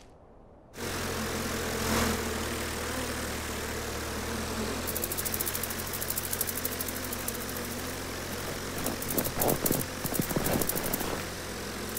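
Steady engine-like drone of a formation of flying insects, their wingbeats voiced as a small propeller aircraft. It starts a moment in, with a fast flutter of ticks from about halfway and a few louder swells near the end.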